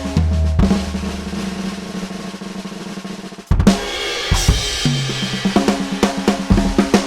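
Sampled acoustic drum kit (Addictive Drums 2) played live from an electronic drum kit. A fill ends on a big hit that rings out and fades for about three seconds. About three and a half seconds in, a loud hit restarts the playing, with kick and snare strokes coming several times a second.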